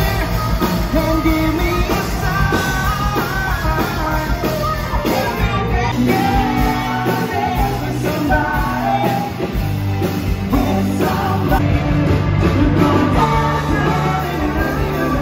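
Live rock band playing: a male singer over electric guitars and drums, heard from the crowd on the dance floor.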